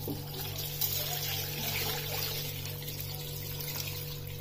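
Water poured in a steady stream from a ceramic pitcher into a stainless-steel pressure cooker holding beef, onions and whole spices, splashing onto the contents; the pour eases off slightly near the end.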